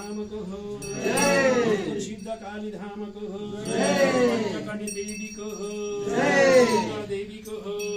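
Voices chanting or singing an aarati in three rising-and-falling phrases about two and a half seconds apart, over the continuous ringing of a puja hand bell.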